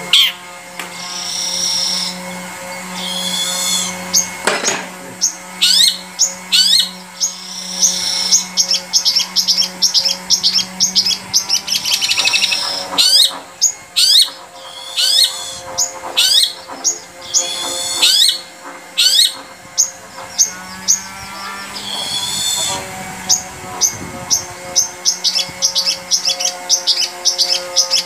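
Long-tailed shrike (cendet) singing: fast runs of sharp, high chips and short harsh, buzzy notes, broken by brief pauses. A steady low hum lies underneath.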